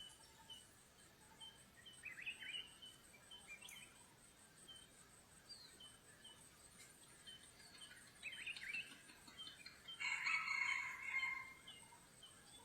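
Faint bird chirps repeating every half second or so, with a few louder bursts of chattering calls about two seconds in and again near the end.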